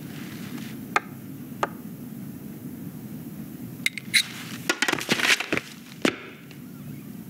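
Two sharp clicks, then a flurry of crackling, clattering noises lasting about two seconds, over a low steady rumble.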